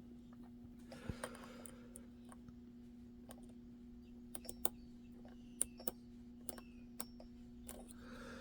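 Faint, irregular clicks of a lock pick tapping and lifting the pin stack of an ASSA Twin 6000 pin-tumbler lock held under tension during single-pin picking, over a steady low hum.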